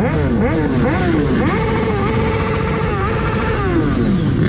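Several motorcycle engines revving together, their notes rising and falling over one another as the riders blip their throttles, with a steadier held engine note about a second and a half to three seconds in.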